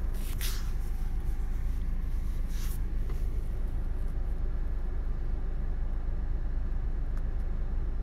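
A steady low hum with two faint, brief hissing sounds in the first three seconds.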